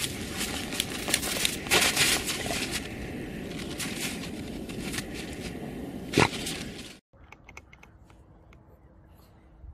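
Dogs digging in crusty snow and frozen ground: continuous crunching and scraping with many sharp crackles and one loud crack a little after six seconds. About seven seconds in the sound cuts off to a much quieter background with a few faint clicks.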